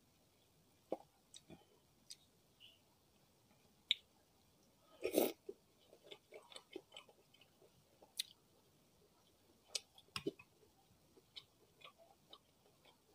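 Close-miked chewing of martabak telor, a pan-fried pastry filled with egg and meat, dipped in cucumber pickle: small wet mouth clicks and smacks, with one louder bite about five seconds in.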